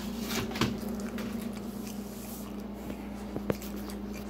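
Eating and handling sounds of pizza at a metal baking sheet: soft, squishy chewing with a few sharp clicks of food and dishes being handled, over a steady low hum.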